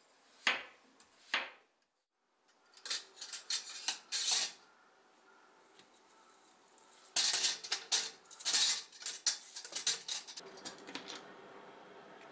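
Kitchenware clattering: utensils clinking and scraping against dishes or pans, in several short bursts.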